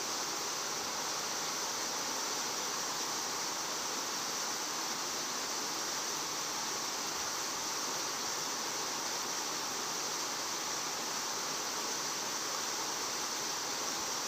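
Steady, even rushing hiss of outdoor background noise, with no distinct events.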